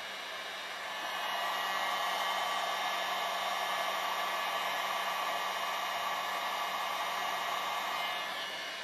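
Taurus electric heat gun blowing hot air steadily onto the end of a poly pipe to soften the plastic for widening. The rushing air rises in loudness about a second in and eases back near the end.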